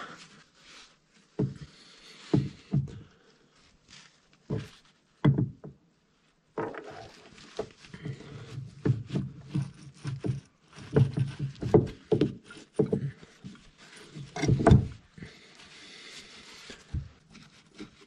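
Irregular metal clunks, knocks and scrapes as a heavy hydraulic drive motor of a Bobcat skid steer is handled and guided into its mounting housing. The knocks come scattered at first, then thicker after a brief dead gap about six seconds in.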